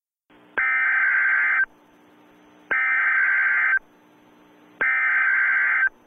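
Emergency Alert System SAME header: three bursts of shrill digital data tones, each about a second long and about a second apart, with faint hiss between them. The bursts carry the coded alert, here a tornado warning.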